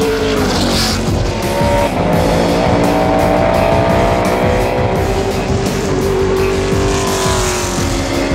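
Chevrolet NASCAR race truck's V8 engine running hard at speed on track, its pitch rising and falling, mixed with background music.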